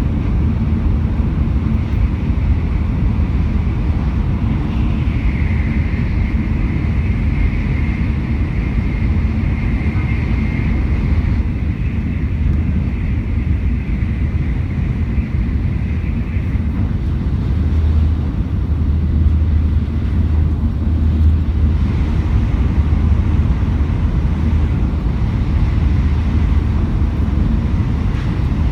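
Shinkansen bullet train running at speed: a steady low rumble, with a faint steady whine in it from about five to sixteen seconds in.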